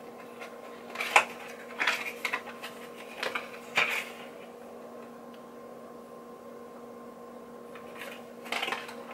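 Cardboard packaging of a Chanel foundation being opened by hand: several sharp clicks, taps and rustles in the first few seconds, a pause, then more rustling near the end. A faint steady hum runs underneath.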